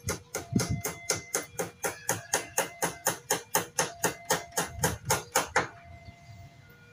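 Railway level-crossing warning bell striking rapidly, about four strokes a second, warning of an approaching train, then cutting off abruptly about five and a half seconds in.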